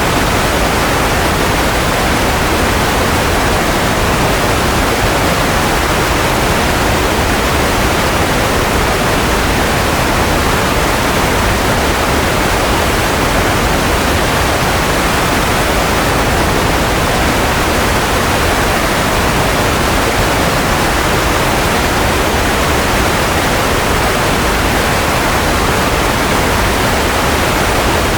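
Steady white noise for settling a baby to sleep: an even, unchanging rushing hiss, fuller in the middle and low range than at the top.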